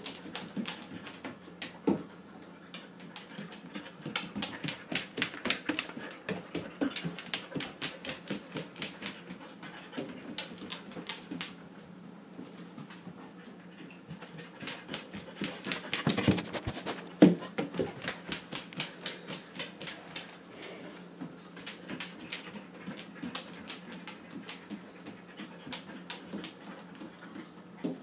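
A dog panting rapidly as it searches about, with light claw clicks on a tile floor. A couple of louder knocks come around the middle.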